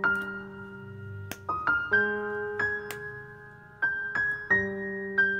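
Background piano music: a slow melody of single notes, each struck and left to ring out.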